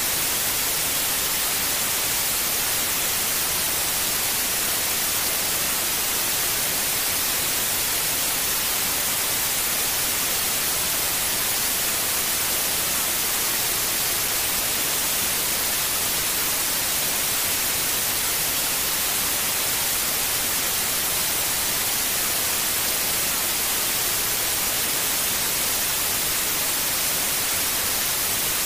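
Steady white noise: an even, unchanging hiss, played as a sleep aid for a newborn baby.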